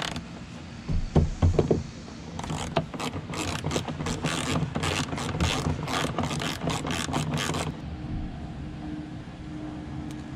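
Socket ratchet wrench clicking in quick, uneven runs as it turns the ball-stud mounts of a Honda CRX's rear hatch gas struts, after a few knocks of the tool about a second in. The clicking stops a little before the end, leaving a faint steady hum.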